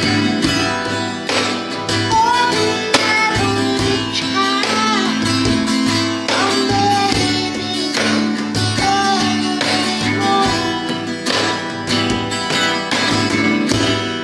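Music: a plucked guitar over a steady, regular beat, with a gliding melody line on top.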